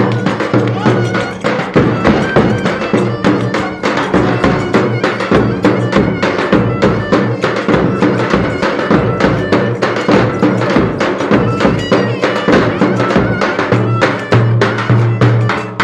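Traditional Turkish folk dance music from a wedding band, with a fast, steady drum beat over a sustained low bass.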